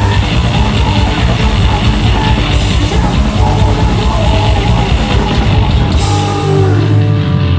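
Hardcore band playing live: distorted guitars, bass and fast drums with crashing cymbals. About six seconds in the drums thin out and held guitar and bass notes ring on.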